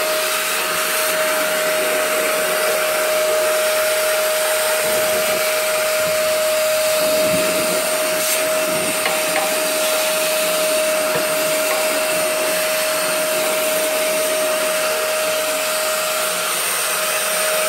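Ash vacuum running steadily with a constant whine, its nozzle sucking ash out of a pellet boiler's ash pan.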